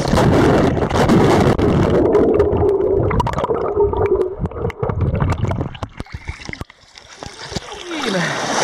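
Camera microphone going under river water: muffled rushing and gurgling water with many knocks and clatters, dropping away briefly about two-thirds of the way through.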